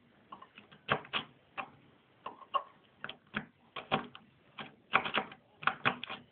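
Klom auto pick gun snapping repeatedly in a Ford Granada door lock barrel: irregular sharp clicks, a few every second, some in quick pairs.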